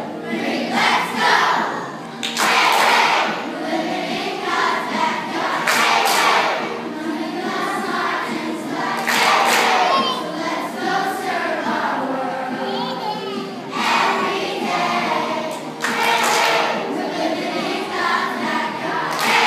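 Group of children singing a Vacation Bible School theme song together.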